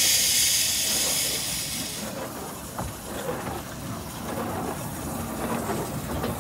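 Narrow-gauge steam locomotive hissing loudly as it lets off steam. The hiss fades after about two seconds to a quieter background with a few faint knocks.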